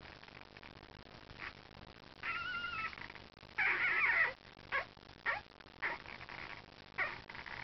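Very young Cardigan Welsh Corgi puppies squeaking and whimpering. A wavering whine comes about two seconds in, then a louder squealing cry, then several short squeaks.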